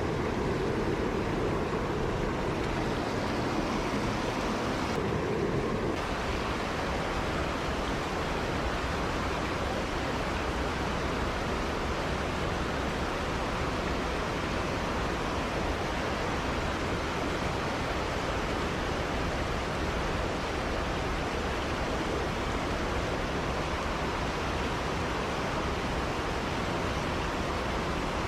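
Mountain stream water rushing over rocks: a steady, even rush, with a slight shift in its tone about six seconds in.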